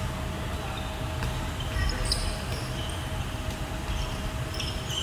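Handball game play on a wooden indoor court: the ball bouncing and players' feet moving on the floor, echoing in a large hall, with a few brief high squeaks about two seconds in.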